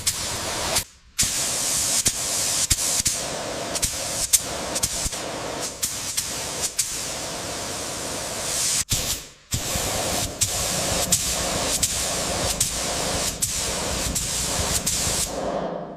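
Steady hiss of a compressed-air spray gun, with short ticks running through it; the spraying breaks off briefly about a second in and again near nine seconds.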